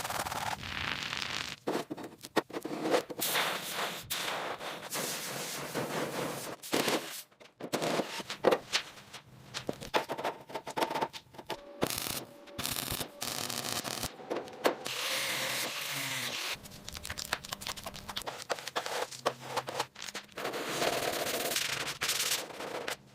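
Workshop work sounds: rapid rattling knocks and scraping on metal, in short stretches that start and stop abruptly.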